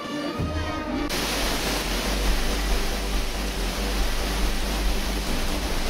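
Music with held tones that cuts off abruptly about a second in, replaced by the steady, loud rush of a large waterfall pouring over rock.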